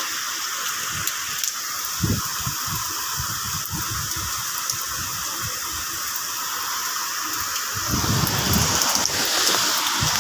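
Heavy rain falling with wind, a steady rushing hiss with scattered low thuds. About eight seconds in it swells louder and fuller.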